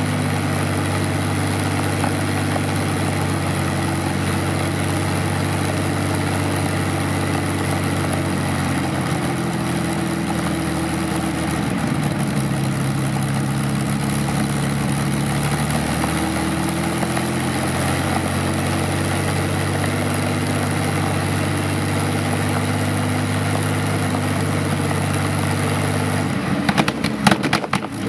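Vintage aircraft piston engine on a trailer-mounted ground-run rig, running steadily at low speed and turning its propeller. The pitch wavers a little around the middle, and a brief burst of louder, irregular sound comes near the end.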